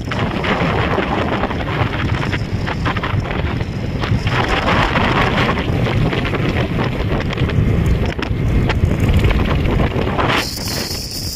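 Wind buffeting the microphone of a moving motorbike at road speed, a dense steady rush with the bike's running noise underneath.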